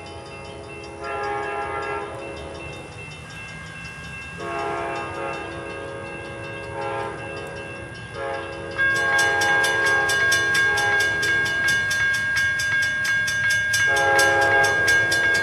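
Amtrak P42DC locomotive horn sounding a series of short and long blasts as the train approaches a grade crossing. About nine seconds in, the crossing bell starts ringing rapidly alongside the horn.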